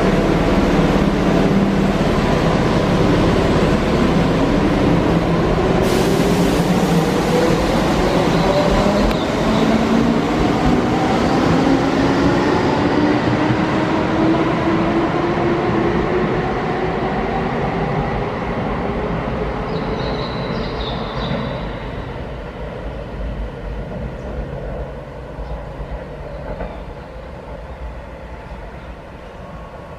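Keihan electric commuter train pulling away, its traction motors giving a whine that climbs steadily in pitch over about fifteen seconds above the rumble of wheels on rail. The sound then fades as the train draws off.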